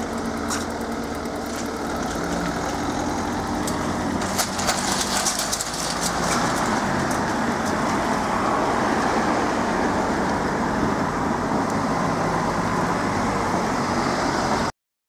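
Road traffic: motor vehicles running and driving past, growing louder after about six seconds. The sound cuts off abruptly near the end.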